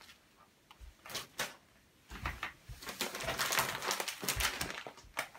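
Plastic zip-top bag being handled and crinkled. A few light taps come about a second in, then steady crackling crinkle from about two seconds in.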